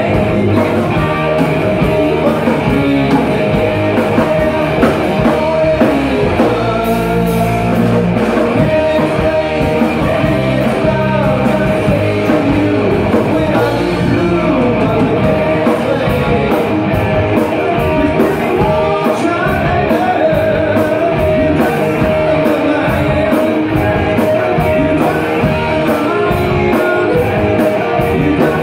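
Live rock band playing loudly: distorted electric guitars through a Randall amp, with a drum kit and a male lead singer singing.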